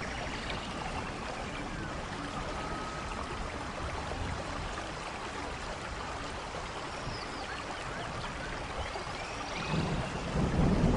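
Steady rainfall in a rainforest with a few faint bird chirps over it; a low rumble of thunder swells up near the end.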